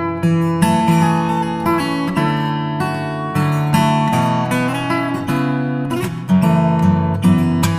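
Background music: acoustic guitar strummed and plucked, with chords changing every second or so.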